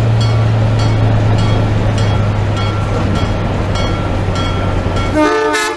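Diesel locomotive running with a steady low engine hum, its bell ringing about twice a second. Near the end a brief wavering pitched sound, and then the sound cuts off suddenly.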